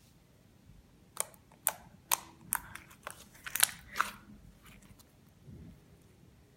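Clear slime being pressed and played with, giving off a quick series of sharp popping clicks, about eight over three seconds, starting about a second in.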